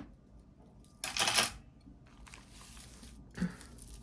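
Metal costume jewelry clinking as it is handled, with a brief rattle about a second in and a softer knock near the end.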